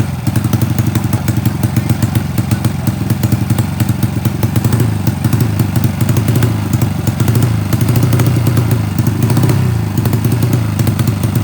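Single-cylinder four-stroke engine of a Honda C70 with a 155 cc Karisma engine running, its exhaust pulsing steadily, with the revs rising and falling a few times in the second half.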